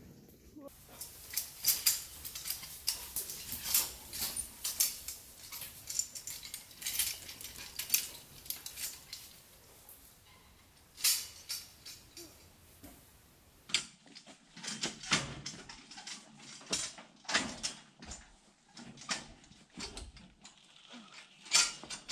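Irregular metal clanks and rattles of a wood stove strapped onto a wheeled mesh trolley as it is hauled over rough ground. About two-thirds of the way through, the sound changes abruptly and the knocks become sharper.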